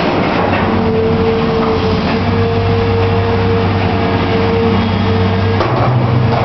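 Caterpillar 322B L excavator's diesel engine running under load, with a steady hydraulic whine as the boom lifts and swings a bucketful of sheet-metal roofing. About five and a half seconds in, the whine stops and the engine note steps up slightly, with a noisier clatter over it.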